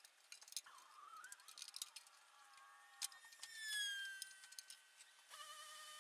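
Faint clinks and light taps of the aluminium aileron trim inspection plate being handled and fitted against the underside of the wing. Alongside them come whistling tones of unclear origin: one slides down in pitch about four seconds in and is the loudest sound, and a steady tone sets in about five seconds in.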